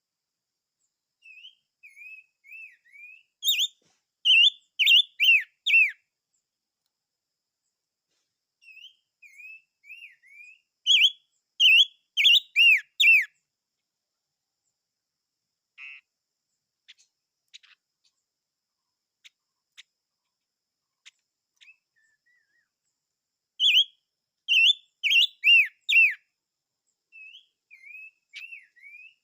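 A songbird singing in three bouts. Each opens with a few soft, rising notes and builds into a run of loud, clear whistles that sweep downward, with a few seconds of pause between bouts.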